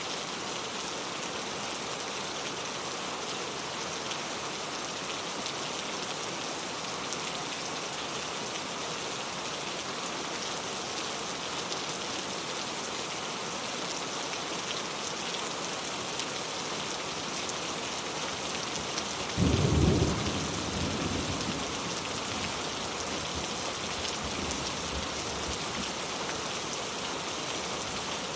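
Steady rain falling, with one sudden crack of thunder about two-thirds of the way through that rumbles away over a couple of seconds.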